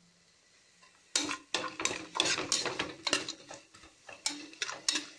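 A spoon stirring and scraping a pan of sautéing tomatoes and onions. It starts about a second in as a run of irregular clattering strokes.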